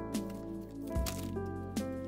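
Background music: a light tune of sustained pitched notes over a low bass note that strikes about a second in.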